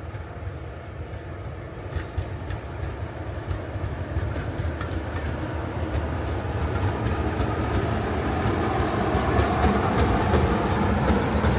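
Diesel locomotive hauling passenger coaches approaches and draws alongside. Its engine drone grows steadily louder, with the clicks of wheels running over rail joints.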